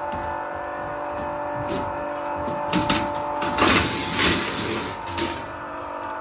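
Sheet-metal front jacket panel of a Burnham Series 2 boiler being worked loose and pulled off: a couple of knocks a little before midway, then a louder rattle and scrape of the metal about two-thirds in, over a steady background hum.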